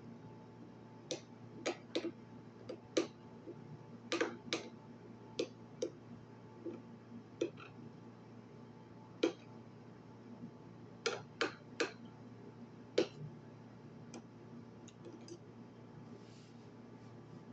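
Someone eating: irregular sharp clicks and taps, a couple of dozen in all, some coming in quick pairs and clusters over a low steady background.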